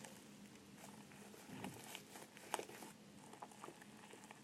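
Near silence: room tone with a faint steady hum and a few soft scattered clicks.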